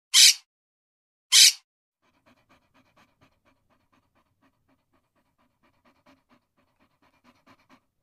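Two short, loud noisy bursts in the first second and a half, then a small terrier panting rapidly and softly, several breaths a second.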